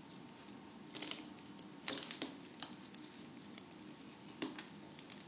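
Faint, scattered clicks and taps of a plastic wrestling action figure being handled and posed, its limbs and waist turned by hand.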